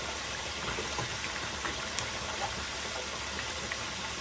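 Food frying in hot oil: a steady sizzle with scattered small crackles and pops, one sharper pop about two seconds in.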